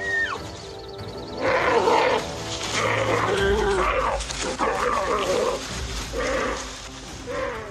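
Rival male giant pandas calling aggressively as they face off: a series of loud calls starting about a second and a half in, the sound of a fight between two males.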